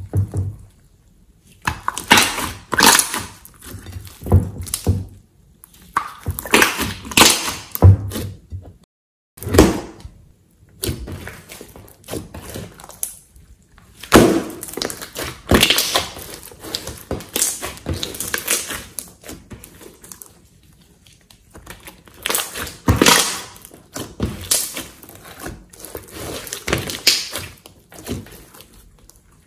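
Hands squeezing, stretching and pressing a large mass of soft slime, giving bursts of wet clicking and popping in clumps a few seconds long, with short quiet gaps between.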